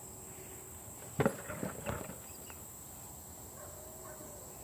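Metal tie-out chain rattling and clinking in a quick run of sharp knocks for under a second, about a second in, as a chained puppy scrambles under a car, over a steady high insect drone.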